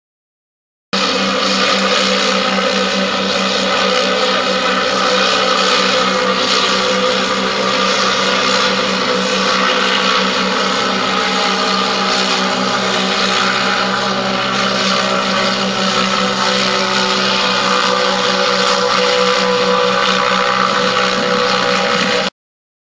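Goodyear blimp's propeller engines running in a steady, even drone. It starts abruptly about a second in and cuts off sharply near the end.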